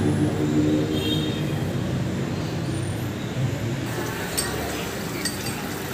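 Street ambience: a motor vehicle's engine running steadily and fading over the first couple of seconds, then light clinks of dishes and cutlery from outdoor café tables about four seconds in.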